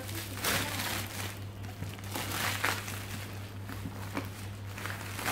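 Clear plastic wrapping crinkling and rustling in several irregular bursts as it is pulled off a cardboard box.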